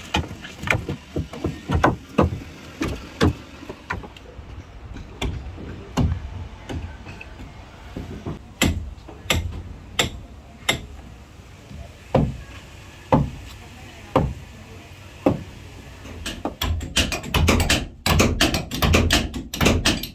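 Hammer blows and knocks on the wooden planking of a fishing boat's hold and cabin as it is being taken apart: separate strikes about once a second, then a quick run of many blows in the last few seconds.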